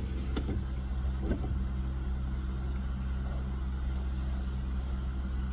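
Car engine idling, a steady low hum heard from inside the cabin. A couple of faint chewing noises from a bite of hamburger come in the first second and a half.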